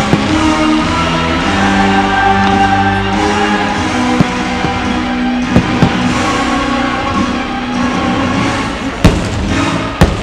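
Fireworks show soundtrack music with sustained pitched tones, punctuated by about five sharp firework bangs, the loudest about nine seconds in.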